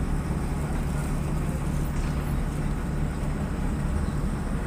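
Steady low hum of a large engine running, without change.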